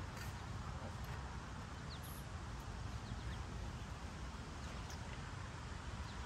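Steady outdoor background noise at a ball field, mostly a low rumble, with a few faint ticks and no speech.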